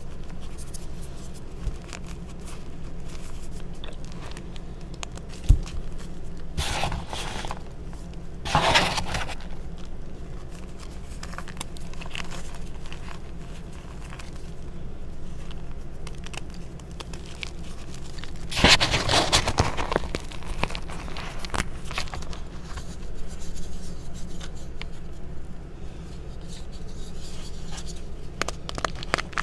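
Hands crushing and rubbing reformed gym chalk in a bowl of chalk powder: a steady soft crumbling and scraping, broken by three louder crunches as pieces give way, about seven and nine seconds in and a longer one around nineteen seconds.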